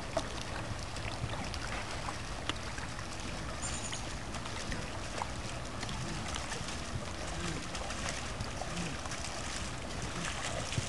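Open-air lakeside ambience: a steady low rumble and noise haze, with scattered faint ticks and a brief high chirp about four seconds in.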